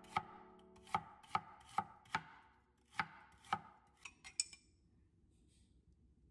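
Kitchen knife slicing celery stalks thinly on a bamboo cutting board: about seven sharp, unevenly spaced chops over the first three and a half seconds, then three lighter cuts.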